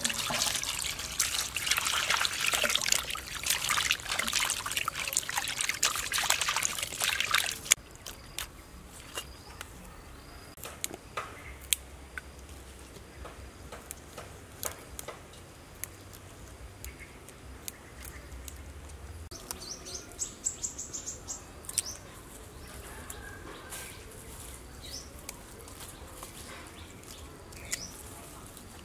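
Water poured in a steady stream onto skinned frogs in a metal basin, stopping after about eight seconds. Then scattered small snaps and clicks as water spinach stems are broken off by hand, with a bird chirping a quick run of high notes about twenty seconds in.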